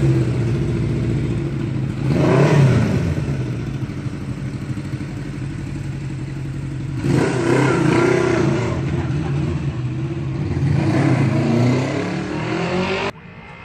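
Kawasaki GT550 motorcycle's four-cylinder engine running and revved up three times, about two seconds in, from about seven to nine seconds, and again near eleven seconds, as the bike rides off. The sound cuts off suddenly near the end.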